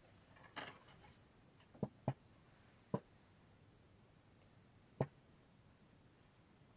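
A few light, sharp clicks from small parts being handled: two close together about two seconds in, then one at about three seconds and one at about five, with a soft rustle near the start.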